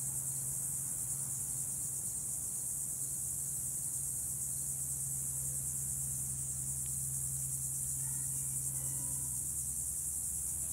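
Steady, high-pitched chorus of insects, an unbroken shrill drone, over a steady low hum.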